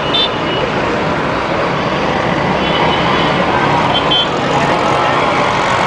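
Busy road traffic: a steady din of scooters, motorcycles, auto-rickshaws and cars passing, with a few short high horn beeps.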